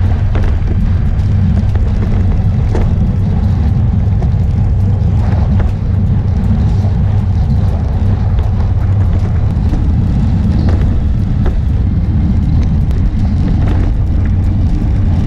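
Wind buffeting a bike-mounted action camera's microphone at racing speed: a loud, steady low rumble.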